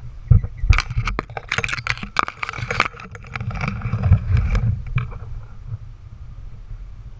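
Wind buffeting the camera microphone as a steady low rumble. From just after the start until about five seconds in, a flurry of sharp clicks and rustling sounds rides over it.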